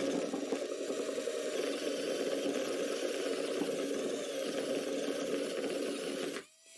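Handheld power tool running steadily with a rattling vibration as it cuts through the plywood tabletop to open up the router hole. It stops suddenly near the end.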